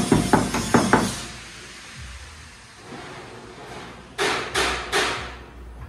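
Hammer blows on the sheet-steel hood of a Suzuki Samurai SJ413 during body work. There is a quick run of taps, about four a second, for the first second, then a pause. Near the end come four slower, evenly spaced blows.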